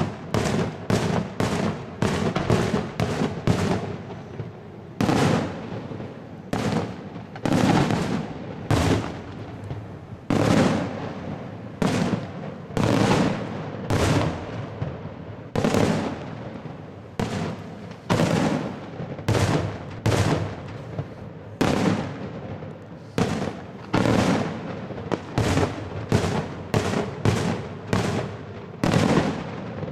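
Daytime aerial fireworks shells bursting overhead: a steady run of loud, sharp bangs, a little more than one a second and unevenly spaced, each followed by a short rumbling tail.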